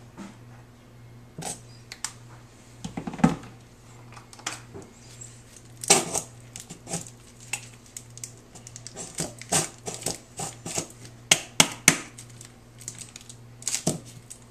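Plastic squeeze bottles of mustard squeezed upside down into a plastic tub: irregular sputtering clicks and squirts with plastic handling noise, over a steady low hum.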